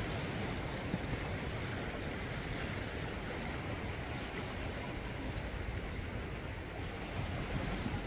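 Small sea waves washing and lapping around dark volcanic rocks on the shore, a steady wash of surf that swells a little near the end.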